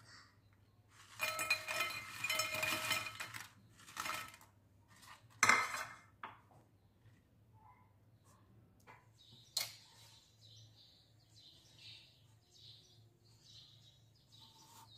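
Crispy fried potato snacks poured from a glass bowl into a ceramic bowl, a rattling clatter of about two seconds, followed by a few separate clinks and knocks of the dishes.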